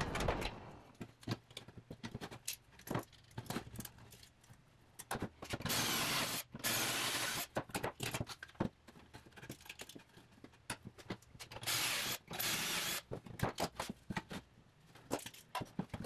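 Cordless drill running in several bursts of a second or two as a pocket-hole bit bores through a handheld Kreg pocket-hole jig into a wooden board. Between the bursts come sharp clicks and clatter of a locking C-clamp and tools being handled.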